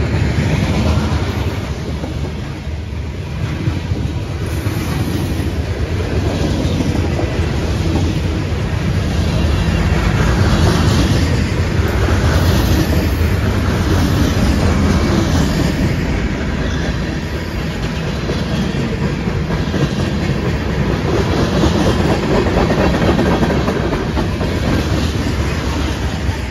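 CSX freight train rolling slowly past close by: a trailing diesel locomotive, then covered hoppers, gondolas and tank cars, their steel wheels clacking over the rail joints in a steady heavy rumble.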